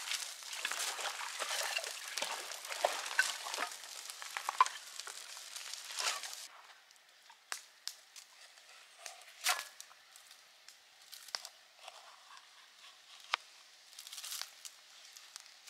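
Small campfire of dry dead wood crackling as it catches. A dense crackle for about six seconds thins to scattered pops and snaps.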